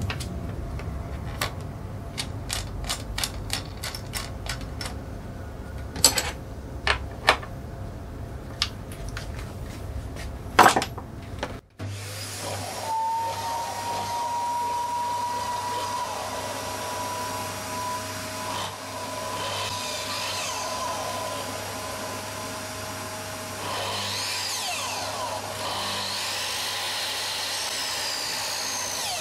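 Light metal clicks and a few sharp knocks as the blade and its hub bolt are refitted on a Makita slide miter saw. After a short break, a steady machine hum with a high whine.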